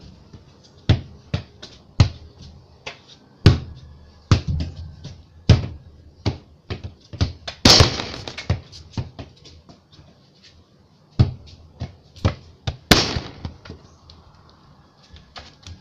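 A football being kicked and bouncing off concrete walls and floor in a narrow corridor: a string of sharp thuds at uneven intervals, with louder echoing hits about eight and thirteen seconds in.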